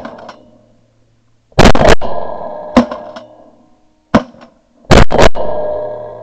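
Shotguns firing at ducks on the wing in two quick volleys of about three shots each, one starting just under two seconds in and the other about four seconds in. The loudest blasts die away in a long echo.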